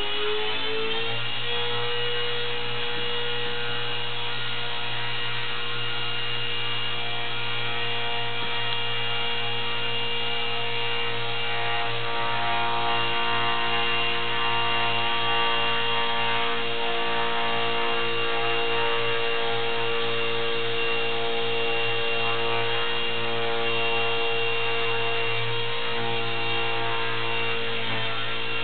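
Micro RC helicopter's electric motor and main rotor running under an Arduino altitude controller. A steady whine with many overtones rises in pitch in the first second as the rotor spins up, then holds, wavering slightly near the end as the controller adjusts the motor voltage.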